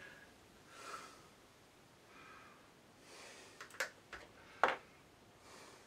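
Faint breathing, with a few soft exhalations spread through. Several sharp clicks of small parts or tools being handled come in quick succession in the second half, the last one the loudest.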